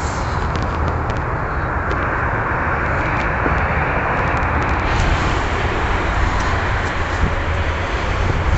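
Ferrari 599 GTB Fiorano's V12 engine idling steadily.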